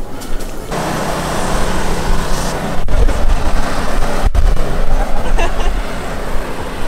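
Pickup truck engine, a Toyota Tundra, starting suddenly about a second in and then running with a loud, rough exhaust rumble.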